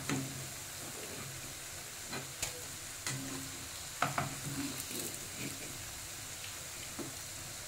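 Cabbage manchurian balls deep-frying in hot oil over a medium-to-high flame, a steady sizzle. A slotted metal spoon clicks against the pan a few times as the balls are turned, most sharply about four seconds in.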